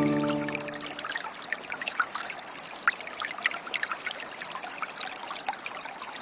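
Running water trickling and splashing steadily, with many small, quick splashes over a soft rushing background, as of a small stream. The held notes of music die away in the first second.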